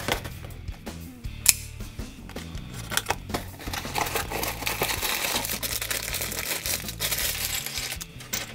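A small cardboard LEGO box being handled and its end flap opened, with sharp clicks, then several seconds of crinkling as the plastic parts bag is torn open, and more light clicks of plastic bricks near the end. Quiet background music plays underneath.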